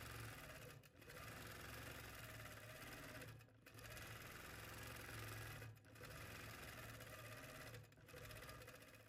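Longarm quilting machine stitching: a faint steady hum with a whirring rush above it, dipping briefly about four times.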